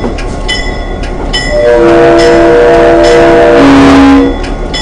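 Florida East Coast diesel locomotive's air horn sounds one long chord-like blast, starting about two seconds in and lasting about two and a half seconds, over the steady rumble of the locomotive running.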